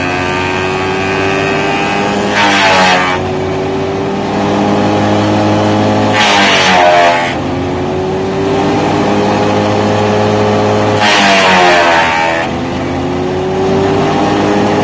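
Morbark M6 wood chipper's engine running hard, being hand-fed a long pole. Three times, the chipper bites into the wood with a harsh burst of chipping about a second long, the engine pitch dropping under the load and then climbing back.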